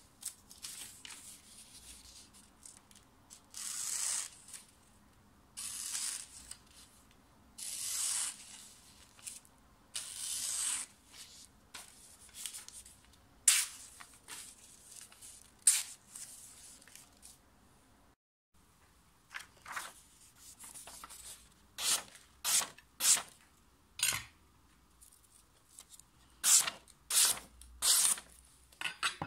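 Freshly sharpened Samura kitchen knife slicing through sheets of paper: a series of crisp, hissing cuts, longer strokes at first and then quick, sharp ones several a second apart.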